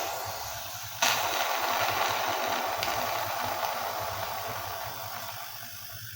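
Refrigerator compressor humming while it draws oil in through a hose on its suction pipe: a rushing hiss starts sharply about a second in and slowly fades.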